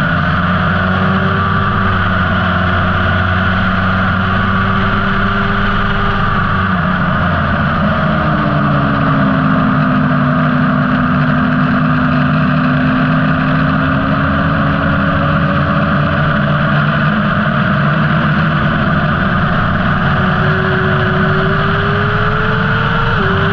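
Motorcycle engine under way at speed, with strong wind rush on the onboard camera. The engine note drops about eight seconds in, then climbs slowly and steadily under a long acceleration, with a brief dip near the end.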